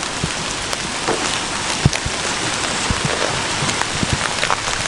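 Heavy hail falling: a steady dense hiss of hailstones, dotted with many separate sharp ticks of stones striking surfaces.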